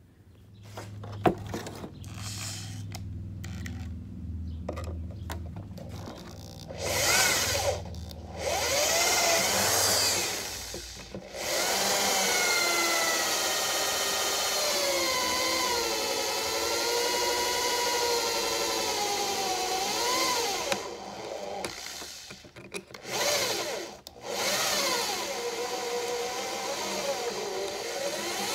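Electric drill drilling out the rivets of a strobe power supply's case: the motor spins up, then the bit cuts into the rivets in several runs with a wavering squeal, stopping briefly a few times in between.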